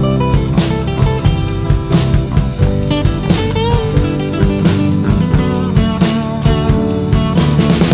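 Instrumental rock song with guitar and a drum kit keeping a steady beat, no singing.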